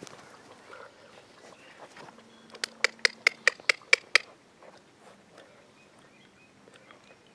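A rapid run of about eight short, sharp animal calls, about five a second, lasting under two seconds, over faint outdoor background.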